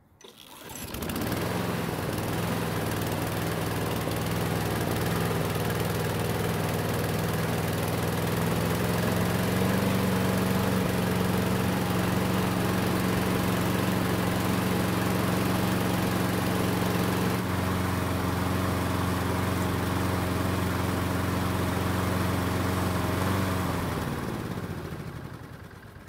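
Craftsman push mower's small engine running steadily; about a third of the way in its pitch rises slightly as the governor spring is put under more tension to raise the running speed. Near the end the engine winds down and stops.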